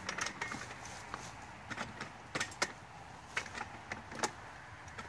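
Disc-O-Bed bunk cot frame being handled and fitted together: a string of sharp, irregular clicks and knocks, the loudest a little past two seconds in and again past four seconds.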